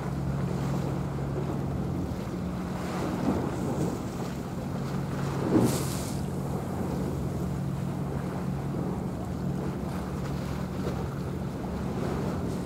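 Steady low drone of a passing ship's engines, mixed with wind noise on the microphone and sea wash. A brief louder rush of wind about five and a half seconds in.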